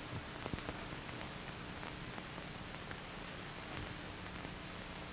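Steady hiss and faint hum of an old optical film soundtrack, with scattered small clicks and crackles.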